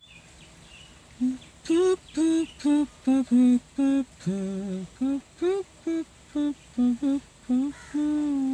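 A person humming a tune in short separate notes that step up and down in pitch, one lower note about halfway through, the last note held longer near the end.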